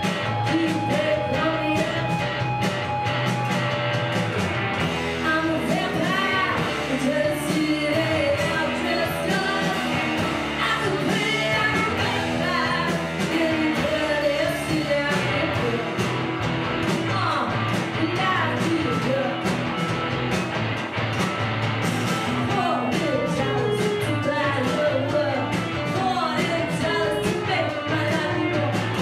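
Indie rock band playing live, with electric guitar and singing.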